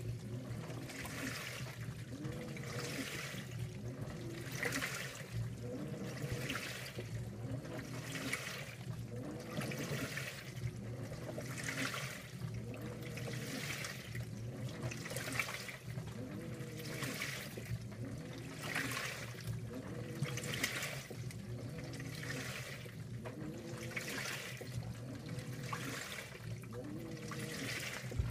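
2012 LG top-load washer agitating in the wash phase: the direct-drive motor whines up and down as the impeller reverses back and forth, and the wash water sloshes through the clothes in a surge about once a second.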